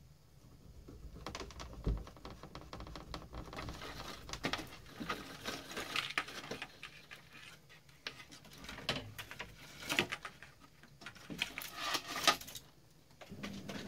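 Bundles of thin hookup wire being pulled and handled against plywood: an irregular run of rustling and small clicks, with a few sharper taps, the sharpest near the end.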